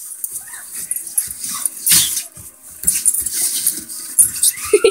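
Two dogs play-fighting, a boxer and a boxer–pit bull mix: irregular short dog vocal sounds mixed with scuffling on bedding. One louder burst comes about two seconds in.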